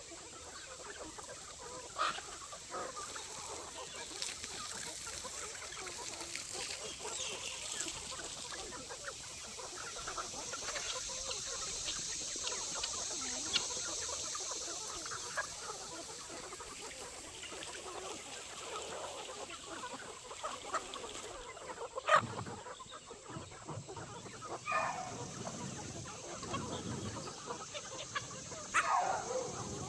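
A flock of chickens clucking and calling over one another without letup, with a few louder drawn-out calls near the end. A single sharp knock stands out about two-thirds of the way through.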